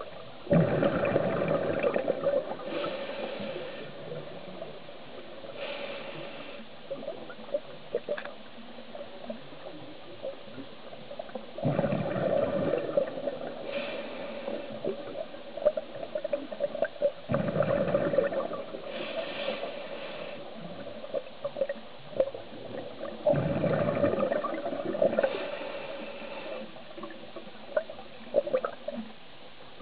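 Scuba diver breathing through a regulator underwater: four bursts of exhaled bubbles gurgling out, a few seconds each, with shorter hisses of inhaling between them over a steady low hum.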